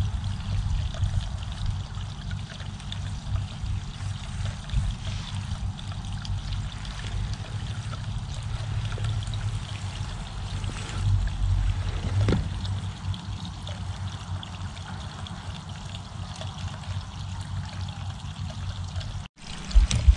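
Wind buffeting a small action camera's microphone: an uneven, rumbling rush that rises and falls, over a faint outdoor hiss.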